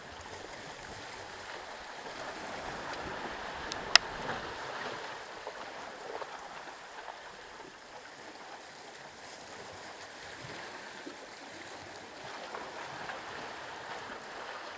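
Calm sea washing and lapping against shore rocks, a steady soft wash with small irregular swells. One sharp click about four seconds in.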